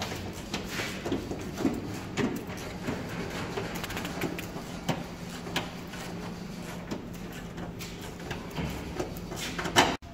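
Workshop noise: irregular clicks and knocks over a steady low hum, with a louder sharp knock near the end, after which the sound cuts off abruptly.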